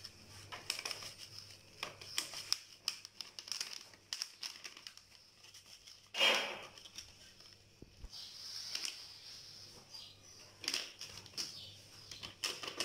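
Foil sachet of whipped-cream powder crinkling and rustling as it is shaken and squeezed to empty the powder into a plastic bowl, with one louder rustle about six seconds in.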